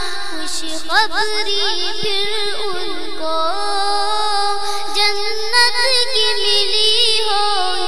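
A child's voice singing a naat: long, ornamented vowel lines without clear words, gliding up and down, over a held lower vocal hum.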